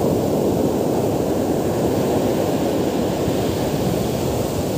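Rough surf breaking and washing up the beach close by, a steady rushing wash, with wind buffeting the microphone.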